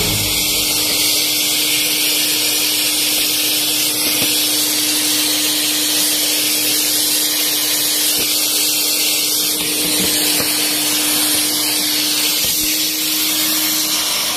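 Vacuum cleaner running steadily as its hose nozzle sucks dust out of a sliding window track. It gives a constant hiss over a steady motor hum that steps slightly higher near the end.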